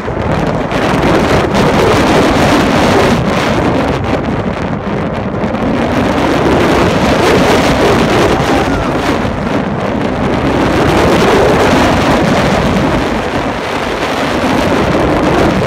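Steady wind blasting the microphone of a rider on the Tennessee Tornado steel roller coaster, mixed with the noise of the train running fast along its track.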